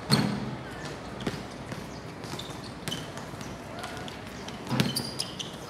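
A basketball bouncing on an outdoor hard court as players run about, with scattered knocks and a couple of short shouts, one at the start and one near the end.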